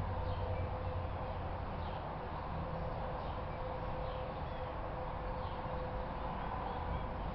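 Outdoor ambience: small birds chirping faintly now and then over a steady hum and low rumble.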